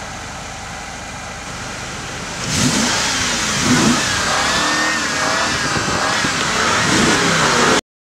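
A car engine running steadily, then revving up and down several times, louder from about two and a half seconds in; the sound cuts off suddenly just before the end.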